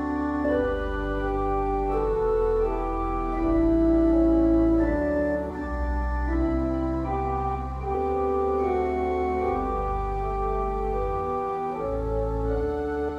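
Organ music: a slow prelude of held chords over low sustained bass notes that change every second or two.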